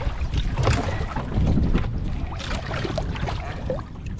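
Wind rumbling on the microphone aboard a small fishing boat at sea, with scattered faint clicks and knocks.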